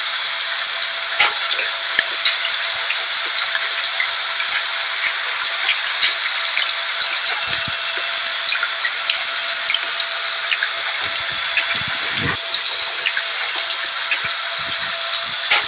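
Rain falling mixed with a vacuum cleaner running: a steady, even hiss with constant tones from the vacuum's motor and many small scattered drop ticks.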